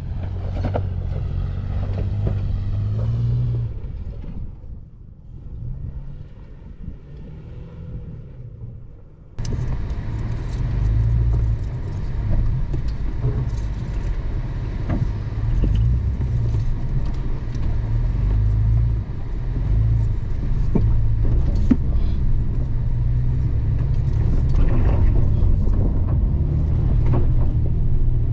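Toyota FJ Cruiser's 4.0-litre V6 engine running under load as the 4x4 crawls up a steep rocky dirt hill. It is heard first from a distance, fading, then much louder and close up from on board after a sudden cut about nine seconds in, with many small knocks and clicks over the low engine rumble.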